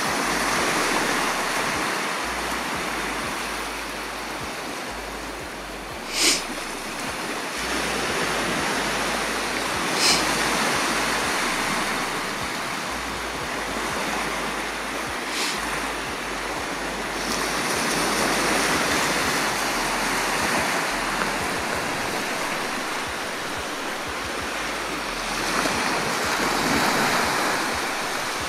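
Sea surf washing onto a sand beach: a steady rush that swells and eases every several seconds. Three brief, sharp high clicks come in the first half, the first the loudest.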